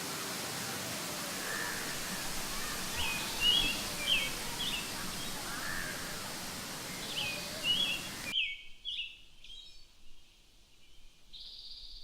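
Small birds chirping over and over in short high calls against a steady rushing noise. About eight seconds in, the rushing stops abruptly and the bird calls go on alone.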